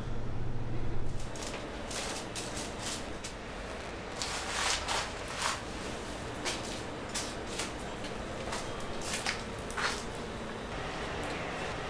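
A child's footsteps crunching and scuffing over a debris-strewn floor, with light clicks and knocks coming at an irregular pace. A low hum fades out about a second in.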